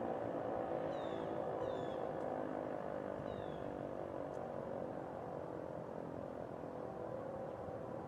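ACA Screamer tornado siren winding down after its test, a steady multi-tone wail dying away slowly. A few short, high chirps sound over it.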